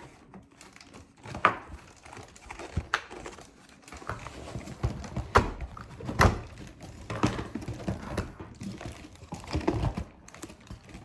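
Plastic toy pieces handled and knocked together: irregular clicks and knocks, a few of them louder, over soft handling noise.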